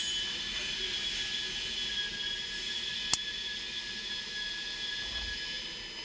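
Steady high-pitched whine in the background, with one sharp click about three seconds in as a tool pries at the airbag module's plastic connector latch.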